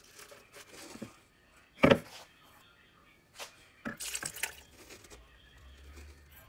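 Kitchen handling at a blender jar: one sharp knock a little before the two-second mark, then raw eggs poured from a metal bowl onto spinach leaves in the jar, a brief splashing pour about four seconds in.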